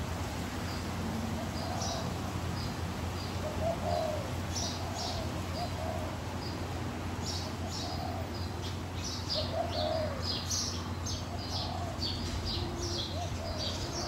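Doves cooing, short soft coos repeating every second or two, with smaller birds chirping high-pitched, the chirps coming thicker in the second half. A faint steady low hum runs underneath.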